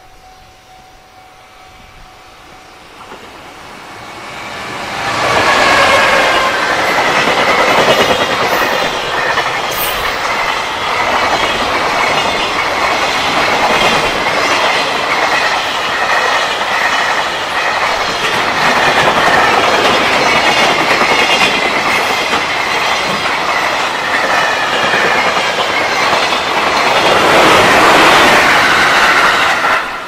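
Level-crossing warning bell ringing at first, then a JR Freight container train approaches and passes at speed. Its wheels clatter over the rail joints in a loud, steady rush from about five seconds in, and the noise cuts off abruptly at the end.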